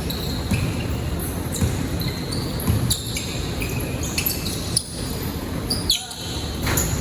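Basketball game in a gym: sneakers squeaking on the court in short high chirps, the ball bouncing, over a steady low hubbub.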